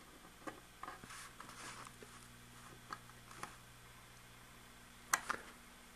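Faint small clicks and rustles of fingers handling a thin wire against the screw terminals of a model-train controller, with the sharpest click about five seconds in. A faint steady low hum runs underneath.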